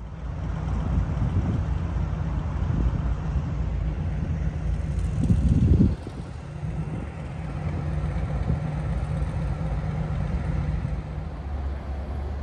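Road traffic noise: a steady low rumble of passing vehicles. It swells to its loudest about five seconds in, then drops suddenly to a slightly quieter stretch of the same rumble.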